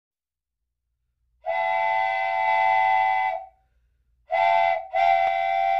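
Train horn sounding three blasts, a chord of several steady tones: one long blast of about two seconds, then two shorter blasts close together.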